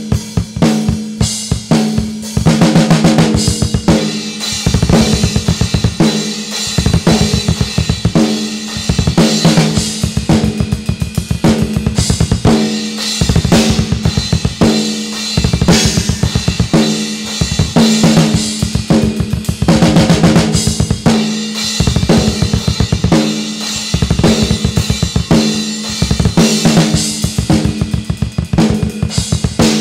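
Acoustic drum kit played hard along to a heavy metal song: rapid bass-drum runs, snare hits and crashing cymbals over the recorded track's steady distorted guitars.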